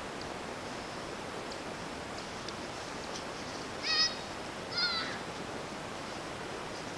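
Steady background hiss, broken about four seconds in by two short high-pitched animal calls about a second apart, each bending in pitch.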